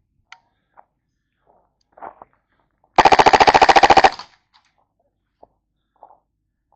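An airsoft gun firing one full-auto burst of about a second, shots at roughly twenty a second, about three seconds in. A few faint clicks and knocks are heard before and after.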